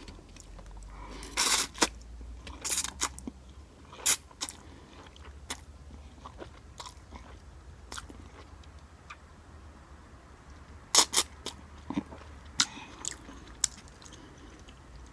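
Close-miked eating of instant cup noodles: chewing and slurping, with a few loud, sharp mouth sounds, a cluster about a second and a half in and another around eleven seconds in.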